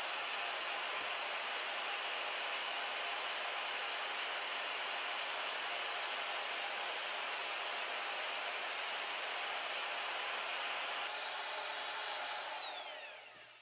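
Power drill spinning a 3D-printed plastic three-speed dog-box transmission and its flywheel: a steady whirring run with a high motor whine. Near the end the whine falls in pitch as the drill slows and winds down.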